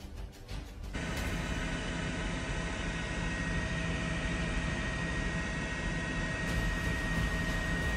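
A steady mechanical drone with a thin constant high whine, starting about a second in after a brief quieter stretch.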